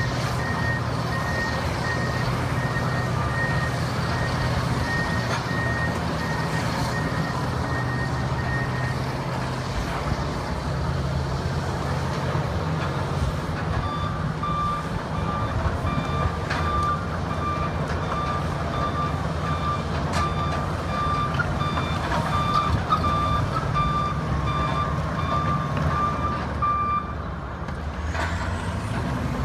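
Two crawler bulldozers, a Cat D9 and a Komatsu D275, running their diesel engines with a steady low rumble as they work. A higher-pitched backup alarm beeps steadily for the first nine seconds or so, then stops. A second, lower-pitched backup alarm beeps from about a quarter of the way in until near the end as the other dozer reverses.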